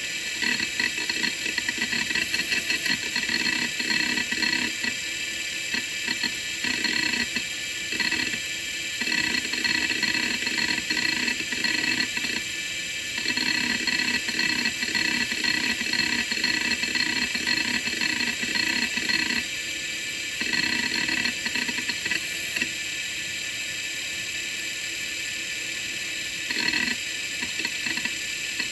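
Quantum ProDrive LPS 105S hard drive running with its lid off: a steady spindle whine with hiss, and the head actuator chattering in rapid seek bursts that start and stop several times, with short pauses between.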